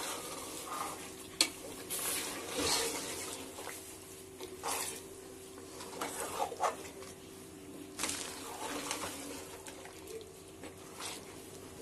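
A spoon stirring and scraping meat and masala in an aluminium pressure-cooker pot, with irregular knocks and scrapes against the metal over a faint sizzle of frying.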